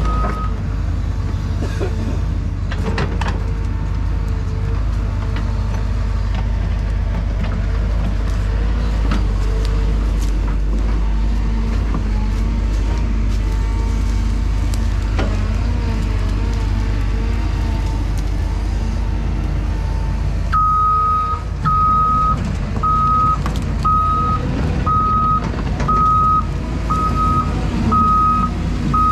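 Excavator's diesel engine running steadily, with scattered clanks from the machine as it works. About twenty seconds in, its back-up alarm starts beeping about once a second as the machine moves.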